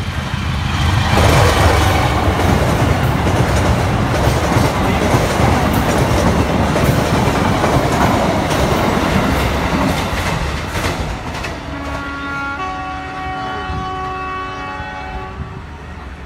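Passenger train passing at speed: a loud rush of wheel and rail noise with clattering over the rail joints swells about a second in and fades away after about ten seconds. Near the end, background music with steady held notes comes up.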